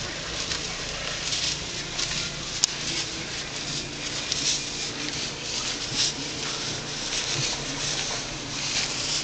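Feet crunching and shuffling through deep, fresh snow in irregular steps, a soft crunch every half second to a second.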